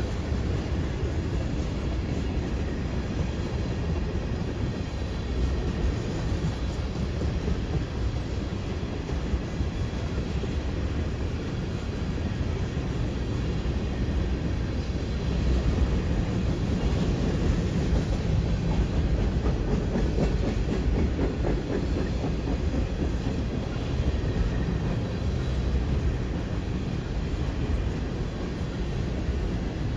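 CN freight train's tank cars and boxcars rolling past: a steady low rumble of steel wheels on rail, with scattered clicks from the wheels. It grows a little louder about halfway.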